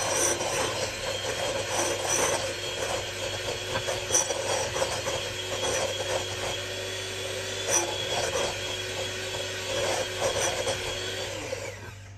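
Salton electric hand mixer running steadily, its beaters whisking butter, sugar and egg in a glass bowl, with a few sharp clicks. The motor switches off just before the end.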